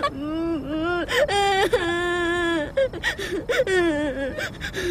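A young woman sobbing and wailing, several long drawn-out crying wails with short breaths between them.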